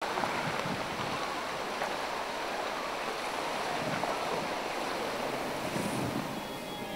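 Steady wind noise on the microphone over choppy sea water, a rushing hiss that rises and falls a little.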